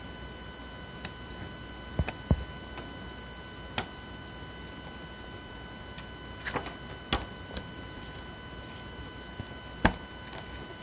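Quiet room tone with a faint steady high-pitched electrical whine, broken by about half a dozen scattered soft clicks and knocks.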